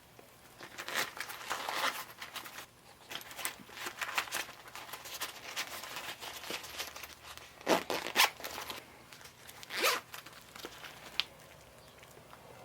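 Zipper on an EDC pouch being pulled in a series of short strokes, with handling noise, the strongest pulls about two-thirds of the way in and a sharp click near the end.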